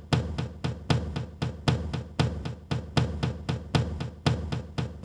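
Background music with a steady, heavy drum beat, about four strikes a second, over a low sustained bass.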